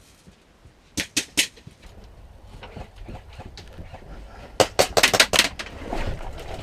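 Airsoft guns firing: three sharp cracks about a second in, then a rapid string of shots from about four and a half seconds on.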